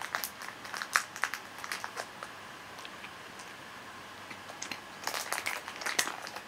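A cat crunching pieces of dry cat food: quick, sharp crunches in two bouts, one in the first two seconds and another about five seconds in, with a quiet pause between.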